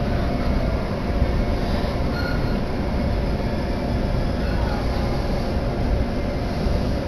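Steady rumble and running noise of a Joban Line commuter train, heard from inside the passenger car while the train is moving.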